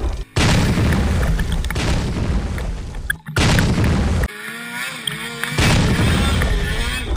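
Snowmobile engine running with heavy wind and snow buffeting on a helmet-mounted camera's microphone, as a loud low rumble. It breaks off abruptly twice, and a quieter stretch just past the middle carries a wavering engine tone before the loud rumble returns.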